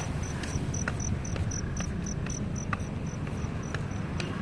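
An insect chirping in a fast, even rhythm, about four high chirps a second, growing fainter near the end, over a steady low rumble.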